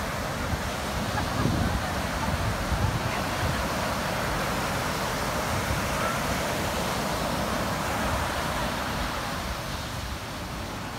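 Ocean surf breaking and washing up a sandy beach, a steady rushing wash with irregular low rumble from wind on the microphone in the first few seconds.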